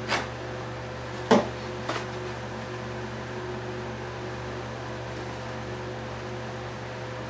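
Steady background hum with a few fixed tones, like a room fan, with three short knocks in the first two seconds, the loudest about a second and a half in, from a glue bottle and a foam model-plane fuselage being handled on a workbench.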